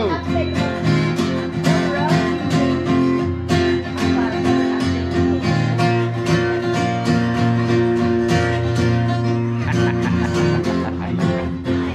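Acoustic guitar played live, strummed and picked in a steady rhythm in a country or blues style.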